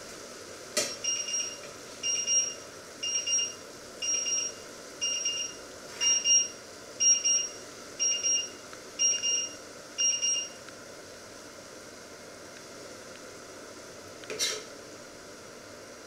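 Electronic kitchen timer alarm beeping: quick high-pitched pips in short groups, repeating about once a second ten times, then stopping. A sharp click comes just before the beeping starts and another near the end.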